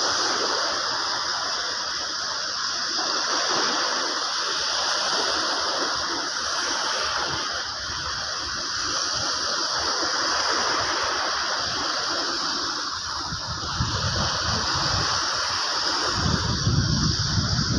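Sea surf washing on a beach, a steady rushing wash of water noise. A deeper rumble joins near the end.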